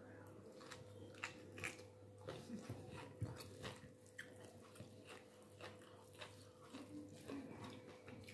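Faint eating sounds: a person chewing a mouthful of rice and curry and working more rice with her fingers on a plate, giving a scattering of small clicks. A steady low hum runs underneath.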